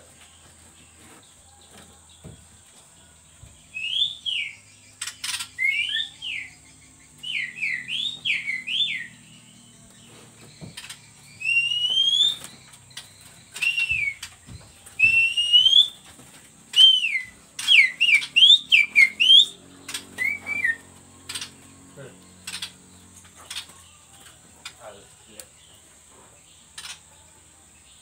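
A run of short, clear whistled notes, each sweeping up or down, in quick groups with short pauses that stop about three-quarters of the way through. Sharp light clicks and taps are scattered through it.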